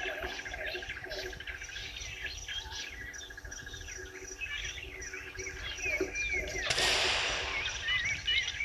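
Many wild birds chirping and calling over one another, with one bird's fast, even trill in the first half. A brief rush of noise comes about seven seconds in.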